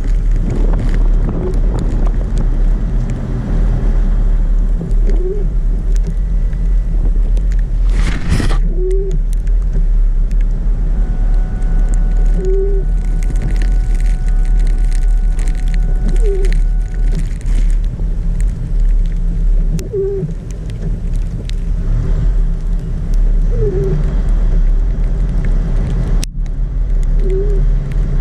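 Car driving through snow, heard from inside: a steady low rumble of engine and road noise, with a short squeak repeating about every four seconds and a single sharp knock about a third of the way in.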